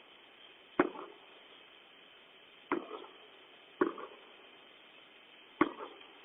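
Fireworks going off at a distance: four sharp bangs at irregular intervals, each followed by a short echo.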